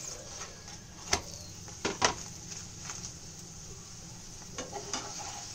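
Prawn paratha shallow-frying in oil in a nonstick pan, a steady sizzle, with a metal spatula clicking against the pan about a second in and twice more around two seconds.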